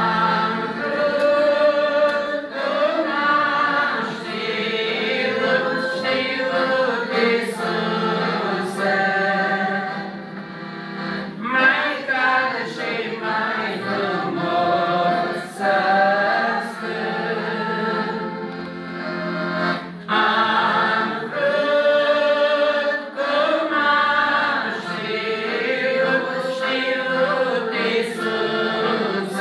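A young woman singing a Romanian religious song, accompanied by a piano accordion playing steady, sustained chords.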